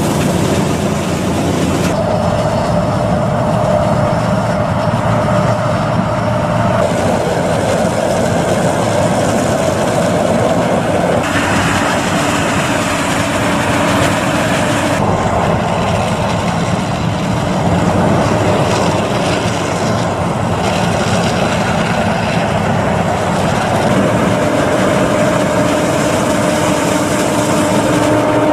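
Combine harvester and tractors running steadily while harvesting corn, engines and harvesting gear giving a loud steady mechanical drone, the sound changing abruptly several times.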